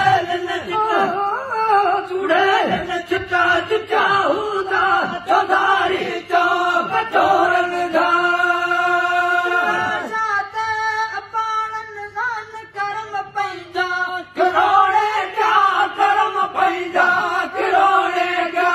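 Men singing a Sindhi song, a lead male voice amplified through a microphone, with long held notes about halfway through.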